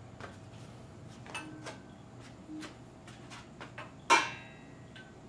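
Metal parts being handled and fitted at the oil pump end of a 5.3 L V8 engine block: scattered light clicks and taps, and one louder, ringing metal clank about four seconds in.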